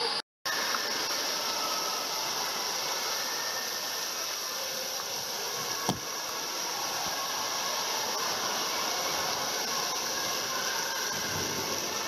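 Steady hiss of splash-pad water jets spraying and spattering onto the wet floor. A single short knock about six seconds in.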